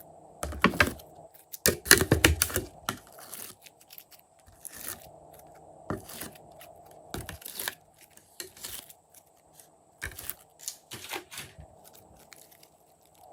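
Hands working slime with mixed-in bits, making irregular crackling, snapping and tearing noises that come thickly for the first three seconds and then in scattered bursts.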